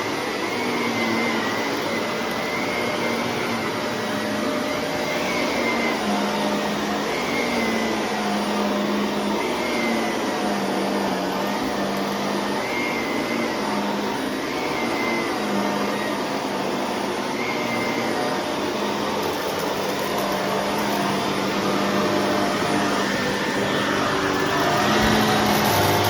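Shark vacuum cleaner running steadily, its motor hum wavering slightly in pitch about every second and a half, growing a little louder near the end.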